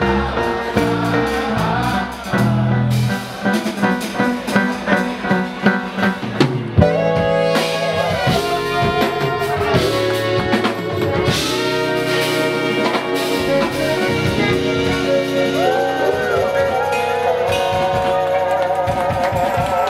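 Live jazz-funk band playing electric bass, drum kit and horns: punchy accented hits for the first several seconds, then held horn chords with vibrato from about seven seconds in.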